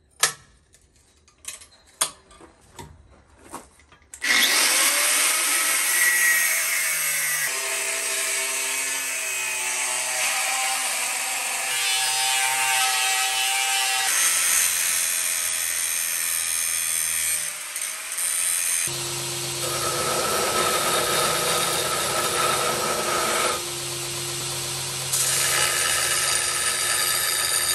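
A few light clicks and knocks, then about four seconds in a corded angle grinder with a cutoff wheel cuts through a laminated wrought-iron, nickel and 52100 steel knife blank, running steadily under load. About nineteen seconds in, the sound changes to a belt grinder: a steady motor hum with the belt grinding the steel blank.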